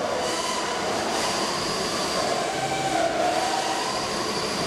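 Combat robot's electric drive motors whining steadily as it drives across the arena floor, the whine sliding up and down in pitch with its speed.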